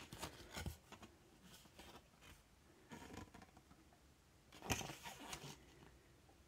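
Faint rustling and scraping of a folded paper TDK D90 cassette J-card being unfolded and handled, in a few short bursts: near the start, about three seconds in, and just before five seconds.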